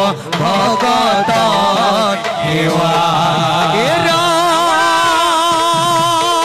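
A voice singing Assamese diha naam, a devotional chant, in long wavering notes. It settles into one long held note about four seconds in.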